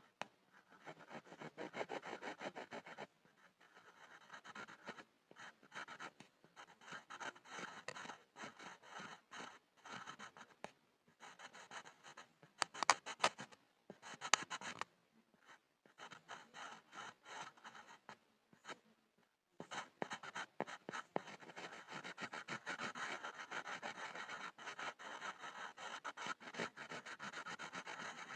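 Pencil scribbling on a wooden board: bursts of rapid scratchy strokes with short pauses between them, a few sharper, louder strokes about halfway through and nearly continuous scribbling near the end.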